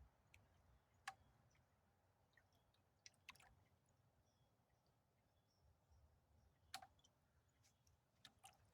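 Near silence with a few faint, sharp, isolated clicks: one about a second in, a couple around three seconds in, one near seven seconds and two near the end.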